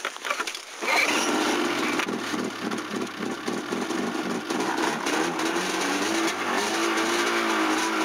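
Snowmobile engine running, heard from the rider's seat: a pulsing beat at first that settles into a steadier sound, rising slightly in pitch near the end.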